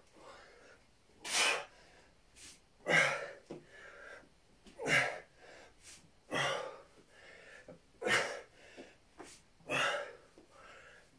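A man's forceful exhalations during sit-ups: one short, sharp breath out with each repetition, about six in a steady rhythm roughly every second and a half, with fainter breaths in between.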